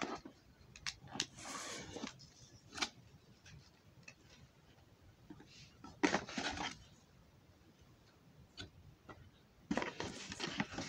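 Hands handling cardboard packaging inside a box: scattered clicks and scrapes, with short bursts of rustling about a second in, around six seconds in and near the end.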